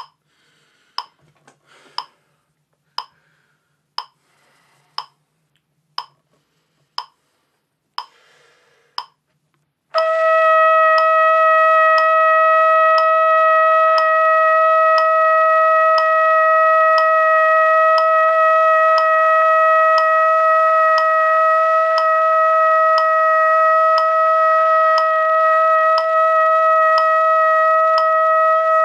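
Metronome clicking about once a second, then about ten seconds in a trumpet comes in with a long tone: a high note held steadily over the continuing clicks, as part of a long-tone practice exercise.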